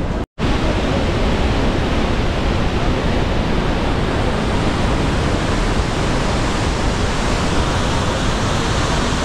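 Steady rush of the Saraswati river's fast mountain torrent, cutting out to silence for a moment about a third of a second in.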